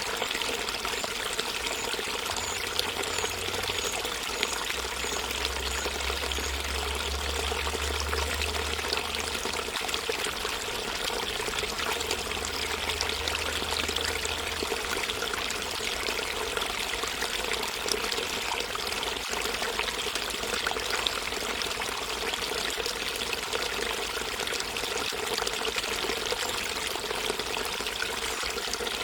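Shallow river water flowing and burbling over rocks, a steady, even rush of water.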